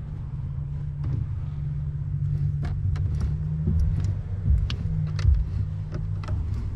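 Clicks and knocks from a boat's newly fitted mechanical rack steering as the wheel is turned, swinging the outboard motor, over a steady low hum.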